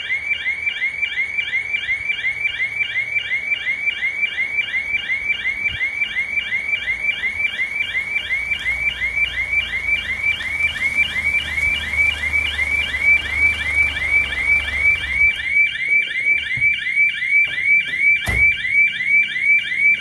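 Bank burglar-alarm siren sounding without a break: an electronic whoop of short rising sweeps, repeating about three times a second. A vehicle engine rumbles underneath it through the middle, and a single sharp knock comes near the end.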